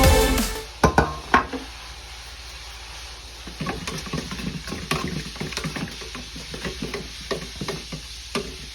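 Background music fading out, then two sharp knocks about a second in and, from the middle on, a run of quick irregular clicks and scrapes of small hand work.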